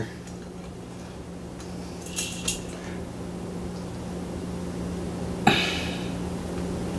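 Light clicks of a plastic ceiling-fan light-kit plate being handled and fitted against the fan's housing, with a sharper knock about five and a half seconds in, over a steady low hum.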